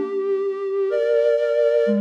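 Korg Minilogue XD synthesizer playing sustained notes with a slight vibrato. The notes move up to a higher pair about a second in, and a low note comes in near the end.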